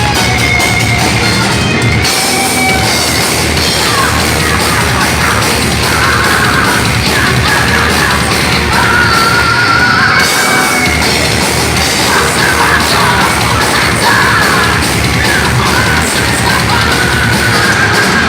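Thrash metal band playing live: loud distorted guitars and drums, with yelled vocals coming in after a few seconds.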